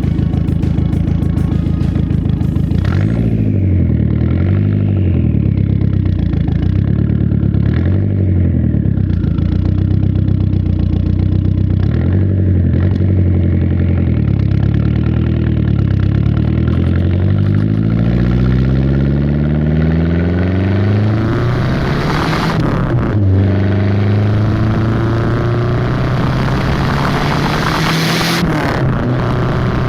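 Volvo 480 Turbo's 1.7-litre turbocharged four-cylinder engine running under way, its pitch climbing and dropping repeatedly as it revs up through the gears. About two-thirds through it settles to a steadier lower note, with two short bursts of noise near the end.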